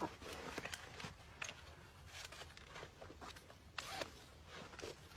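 Faint, irregular rustling and crackling of movement, with a sharper crackle a little before the end.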